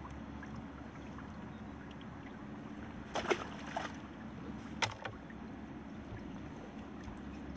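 Landing net and fishing tackle being handled: a short cluster of knocks and clatter about three seconds in, then a single sharp click about five seconds in, over a steady low outdoor background.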